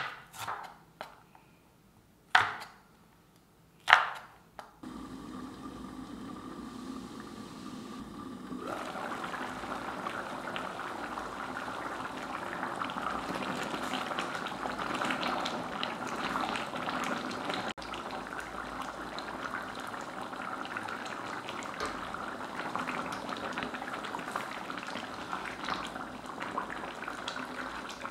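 A knife chopping shallots on a wooden board: a few sharp strokes in the first four seconds. Then a thick chicken curry bubbling steadily as it simmers in a pan, louder from about nine seconds in.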